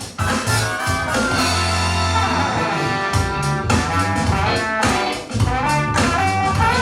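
Loud funk-style dance music with guitar, horns and a drum kit beat.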